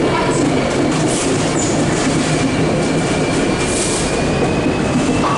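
Freight train wagons rolling past at close range: a steady rumble and rattle of wheels on rail, with a thin, slightly rising wheel squeal running through it.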